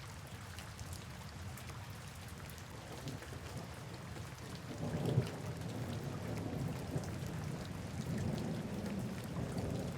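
Steady rainfall with fine drop ticks, under a low rumble of thunder that swells about halfway through and keeps rolling.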